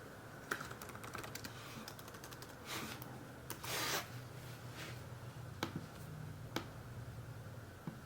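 Faint, scattered clicking and tapping on a 2012 MacBook Pro's keyboard and trackpad, with a quick run of small clicks about a second in and a short rustle a little under four seconds in.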